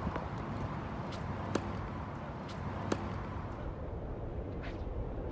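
Tennis rally on a hard court: sharp pops of the ball struck by racquets and bouncing, a few per second apart, the loudest about one and a half and three seconds in, over a steady low rumble.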